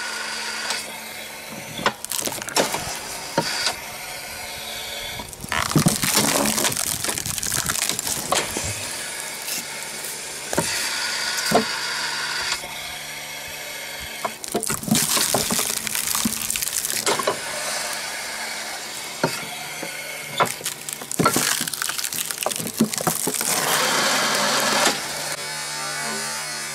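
SNIK water-hydraulic wood splitter driven by a pressure washer: the washer's motor hums steadily while the ram drives logs onto the wedge several times, with loud stretches of wood creaking, cracking and splintering as the logs split apart.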